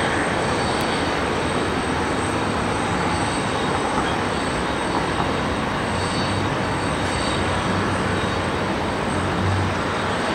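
Rear-engined jet airliner taxiing, its engines giving a steady rush of noise.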